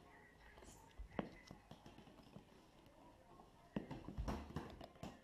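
Faint scattered knocks and taps of a toddler playing with plastic balls on a wooden floor: a single knock about a second in, and a cluster of knocks with a dull thud near four seconds in.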